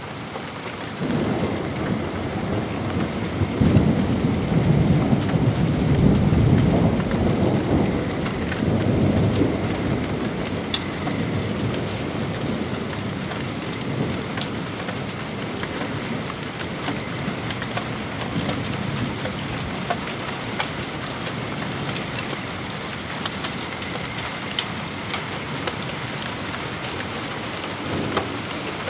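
Thunder after a nearby lightning flash: a deep rumble starts about a second in, is loudest a few seconds later, then rolls off and fades. Steady rain and scattered drips run under it throughout.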